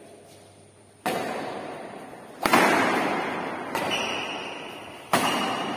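Badminton rally: a racket strikes the shuttlecock four times, about every one and a half seconds, with the third hit softer. Each sharp crack rings on in the echo of a large, bare concrete hall.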